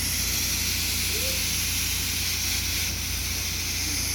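Steady loud hiss over a low hum, with faint voices now and then.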